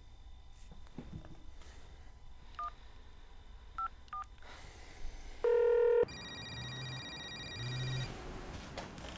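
Phone keypad tones: three short two-tone dialling beeps, then a louder half-second beep. About six seconds in a telephone starts ringing, with two ring pulses.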